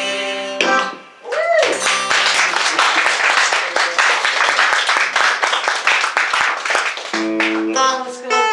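Audience applauding for about five seconds after a song ends on a held chord. Pitched instrument notes come back near the end.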